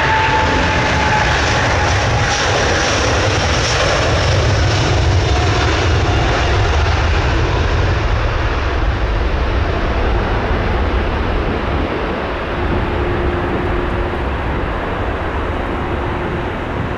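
Airbus A330neo's Rolls-Royce Trent 7000 jet engines at takeoff power as the airliner rolls down the runway past the listener, a low rumble with a high engine whine at first. The high part fades after about halfway as the aircraft draws away.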